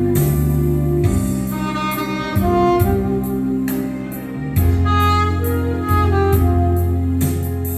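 Saxophone playing a melody over accompaniment with steady bass notes and a regular beat.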